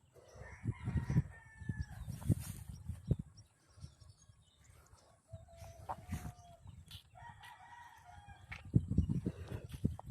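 Roosters crowing: three drawn-out crows, the first about half a second in, a lower one around the middle, and another near the end. Irregular low rumbling thumps run underneath.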